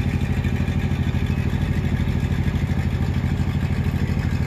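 A wooden river boat's engine running steadily at a constant speed, with a fast, even pulsing beat.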